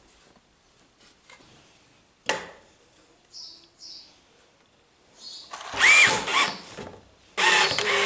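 Cordless drill driving screws through a metal hinge into a wooden bracket, in two short runs with the motor's pitch rising and falling. A single sharp knock comes about two seconds in.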